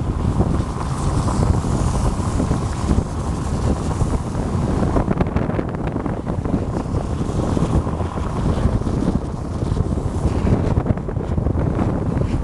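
Steady wind buffeting on the microphone of a camera carried on a moving car, a continuous rumble with hiss above it.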